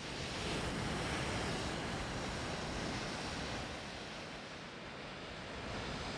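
A steady rushing noise like wind or surf, the composed electronic soundtrack of a projection-mapping piece. It swells up as the picture opens and dips slightly past the middle before rising again.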